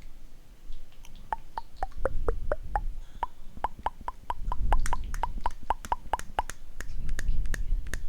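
Rapid ASMR mouth clicks, 'tk tk' tongue clicking close to the microphone, starting about a second in and going on at roughly four to five clicks a second, with a few clicks dropping in pitch, over a low rumble.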